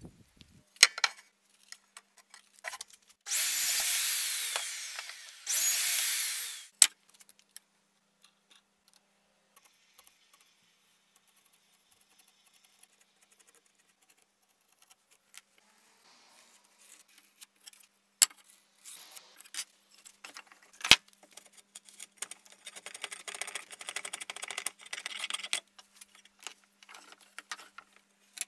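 Woodworking tool sounds: two short runs of a power tool early on, then a series of irregular scraping strokes of a hand blade shaving a wooden stave.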